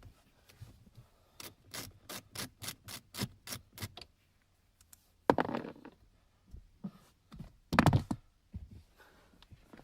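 Plastic interior trim of a car's center console being worked loose. First comes a quick, even run of about a dozen clicks, roughly four a second, then two louder clattering knocks as the side trim pieces come off.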